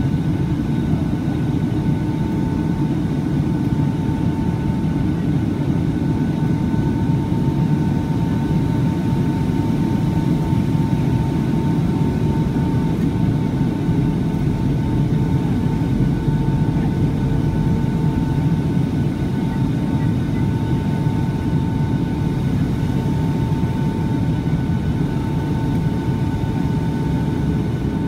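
Steady cabin noise inside a Boeing 757-200 in flight: a deep, even rumble of engines and airflow, with a thin steady whine on top.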